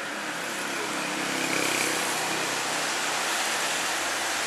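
A motor vehicle passing on a wet street: a low engine hum under a swelling hiss of tyres on the wet road.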